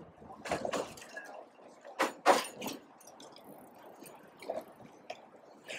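Rowing eight underway: irregular splashing and knocking bursts from the oars and boat, the loudest about half a second and two seconds in.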